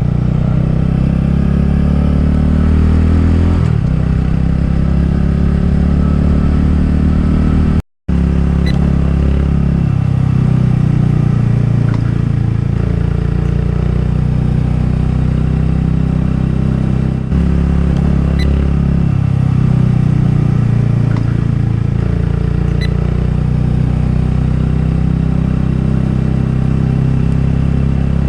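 Honda Grom's single-cylinder engine running under way, its pitch rising and falling with throttle and gear changes. The sound cuts out for a moment about eight seconds in.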